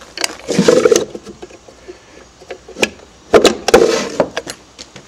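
Wooden drawer of an antique coat stand slid open and pushed shut: two scraping slides of wood on wood about three seconds apart, with a few sharp clicks from the metal drawer pull around the second slide.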